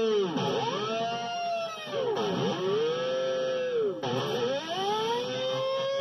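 Electric guitar (Dean Switchblade) sounded with an E-Bow, giving long, endlessly sustained notes rich in overtones. The pitch swoops steeply down and back up about three times. Near the end it settles on one held note that slowly bends upward.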